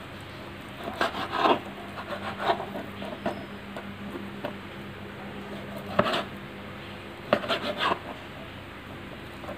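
Kitchen knife slicing raw chicken breast on a cutting board: quick knife strokes scraping and tapping on the board in short runs, with a single sharper knock of the blade on the board about six seconds in.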